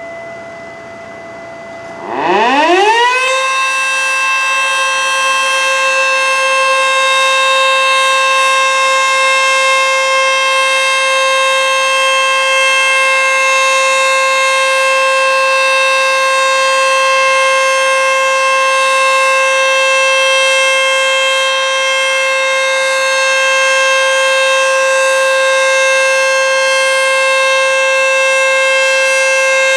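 ACA Screamer S-2 outdoor warning siren starting up: about two seconds in it winds up, its pitch rising over a second and a half, then it holds one loud, steady tone. Before that, a fainter steady tone is heard.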